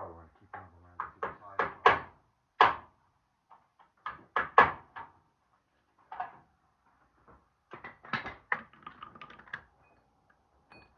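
Irregular knocks and clunks of hand tools and metal parts against a van's rear door during lock actuator work. They come in three clusters, the loudest about two seconds and four and a half seconds in.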